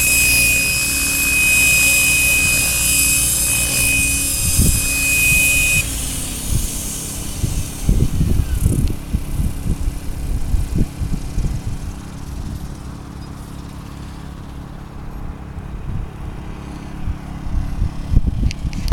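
RC model helicopter running with a steady high whine that cuts off abruptly about six seconds in, its lower rotor tone then sliding down as it spools down. After that, low gusty rumbling and thumps of wind on the microphone.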